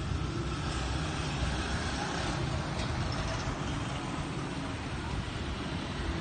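Steady low rumble of motor-vehicle engines and road noise on a street.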